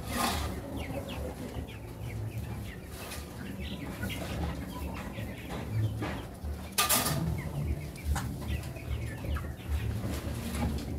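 Flock of chickens clucking and calling continuously, with a shovel scraping and scooping old manure litter off the floor: once at the start and more loudly about seven seconds in.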